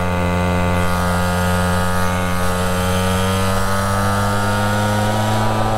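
Gas pocket bike's small engine running hard at steady high revs while riding, loud, its pitch creeping slowly upward as it holds the throttle.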